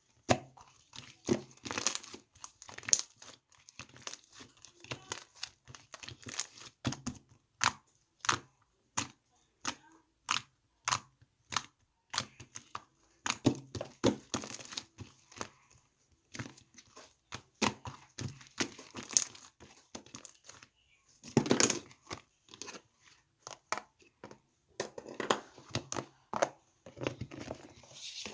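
Irregular sharp clicks and taps mixed with stretches of crinkling and tearing, with denser, louder bursts about two, fourteen and twenty-one seconds in.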